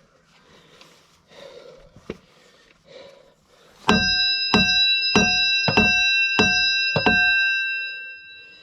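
Six heavy hammer blows on a steel part, about one every 0.6 seconds, starting about four seconds in; each gives a dull thud and the metal rings on with a bell-like tone between blows, fading near the end.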